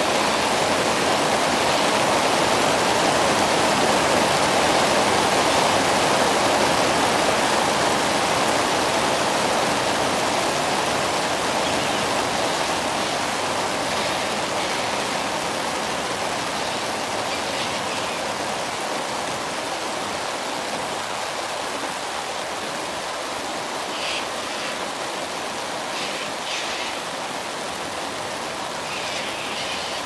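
Heavy rain falling steadily on trees and foliage, a dense even hiss that eases slightly over the second half.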